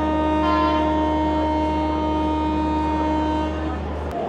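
Steady electrical and mechanical drone of a train standing at the platform: a low hum under an even whine, with a short higher tone about half a second in. The drone stops shortly before the end.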